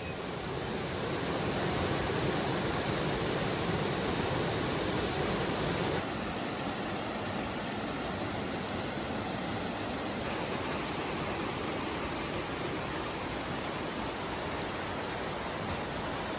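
Mountain valley stream rushing over rocks, a steady, even rush of water that drops a little in level about six seconds in.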